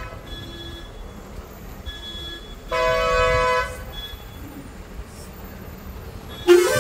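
Vehicle horns honking over road noise. There are a few short, faint toots, one loud horn blast about a second long around three seconds in, and another loud, wavering blast near the end.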